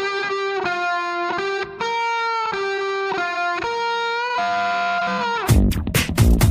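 Instrumental background music: a lead melody in long held notes, with a loud beat with heavy low thumps coming in about five and a half seconds in.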